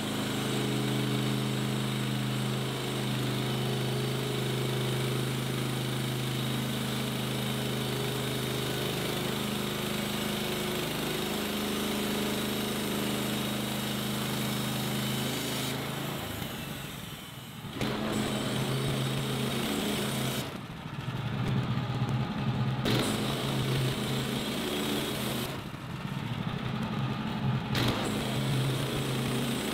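Woodland Mills HM130 Max portable bandsaw mill running, its gasoline engine at speed as the band blade cuts lengthwise through a large old railroad tie. The engine note is steady for the first half, then dips briefly and turns rougher and more uneven. The blade is cutting easily, not bogging down.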